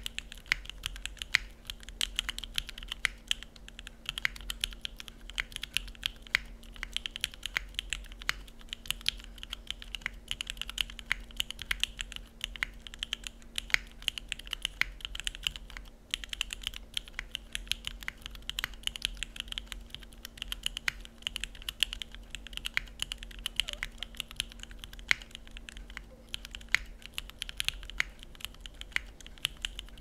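Steady fast typing on a NEO65 gasket-mount mechanical keyboard with an aluminium plate, no foam, lubed JWICK Molly linear switches and Cherry-profile keycaps: a dense, even run of clacky keystrokes.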